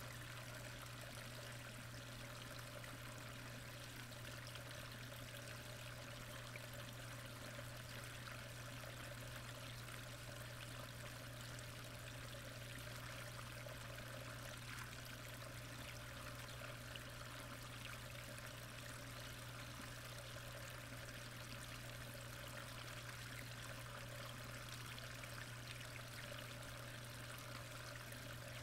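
Steady, muffled rush of moving pond water picked up by a submerged camera, with a low steady hum underneath.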